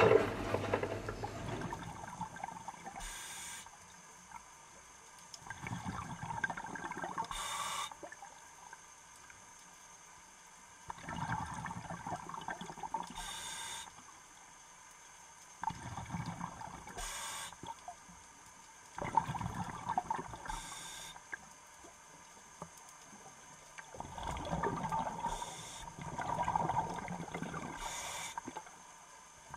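Scuba diver breathing underwater: hissing breaths through the breathing set and gurgling bursts of exhaled bubbles, repeating about every four to five seconds.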